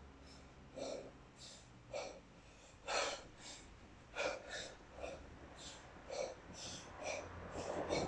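Short, forceful breaths in and out through the nose and mouth, about one to two a second, from a lifter working through one-arm snatches with a 32 kg kettlebell.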